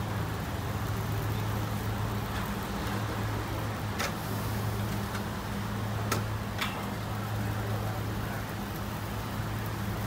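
Steady low hum and hiss of a street-food griddle stall, with electric fans running. A few sharp clicks of metal utensils on the round iron griddle plates come about four seconds in and twice around six seconds in.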